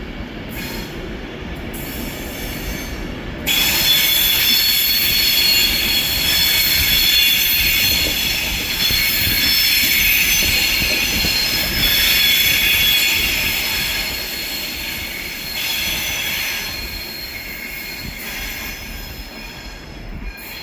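Class 390 Pendolino electric train moving through the station over the low rumble of its wheels on the rails. About three seconds in, a loud high squeal of several steady tones sets in from its wheels and eases off somewhat near the end.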